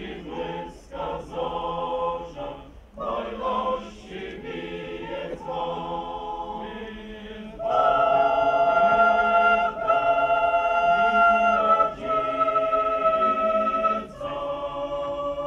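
Mixed church choir singing a sacred piece in parts. About halfway through the singing grows louder on long held notes for several seconds, then falls back to a softer phrase near the end.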